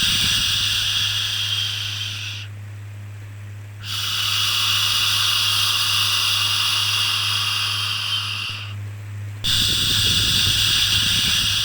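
Long 'shhh' shushing sounds for calming a baby, each several seconds long with a short pause between them: about three in a row. A steady low hum runs underneath.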